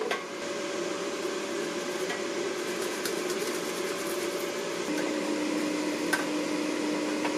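Philips air fryer's fan running with a steady whirr and hum; the hum drops to a lower pitch about five seconds in. A few faint clinks of a fork against the wire-mesh basket.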